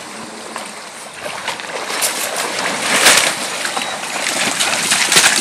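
Husky wading and splashing through a shallow stream over the sound of the running water, the splashing growing louder from about two seconds in as the dog comes close.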